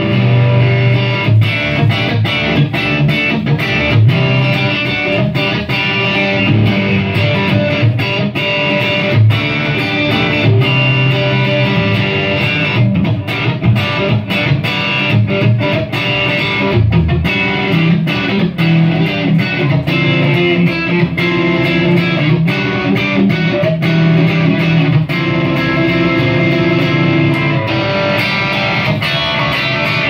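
Stratocaster-style electric guitar played continuously through a Pedalbot Crimson effects pedal and amplifier, strummed chords and picked phrases in a pedal sound test.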